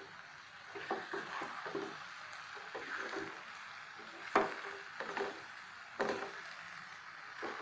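A spoon stirring vermicelli upma with vegetables in a steel pan, scraping and knocking against the metal in an uneven rhythm over a steady sizzle from the hot pan. The sharpest knocks come about four and a half seconds in and again about six seconds in.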